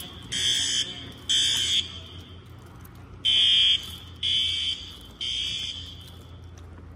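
Fire alarm sounding the temporal-three evacuation pattern: loud, high-pitched blasts of about half a second, three at a time with a pause of about a second and a half between groups. The last blast of the second group is softer.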